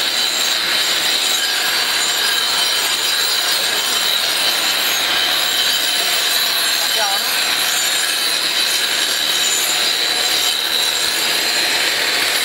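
Hand-held angle grinder in a dust shroud grinding epoxy coating off a concrete floor at the wall edge, running steadily with a high whine over the grinding noise.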